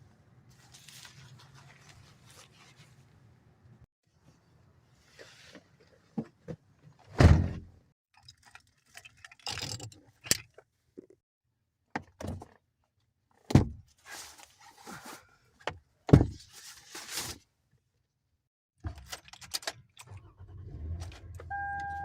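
Moving about inside a camper van: rustling and clattering, with several sharp thunks like doors or latches shutting. A steady electronic beep sounds briefly near the end.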